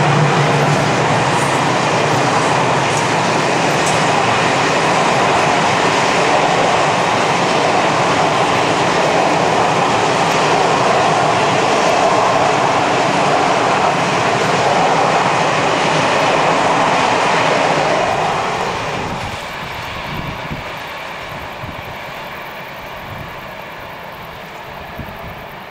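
Passenger train's coaches rolling past: a steady rumble of steel wheels on rail with some clickety-clack. About three-quarters through it falls away to a quieter, more distant train sound.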